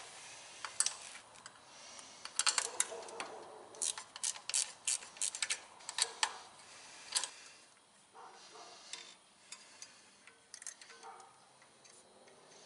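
Sharp metallic clicks and taps as a small-engine carburetor and its throttle linkage are handled and fitted by hand. The clicks come thick and fast for several seconds in the middle, then thin out.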